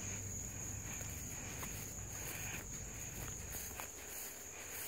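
Steady high-pitched chorus of crickets, one unbroken trill, with a few faint ticks over it.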